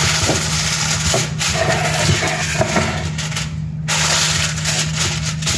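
Aluminium foil crinkling and rustling as hands spread and crimp it over a cooking pot, pausing briefly about three and a half seconds in. A steady low hum runs underneath.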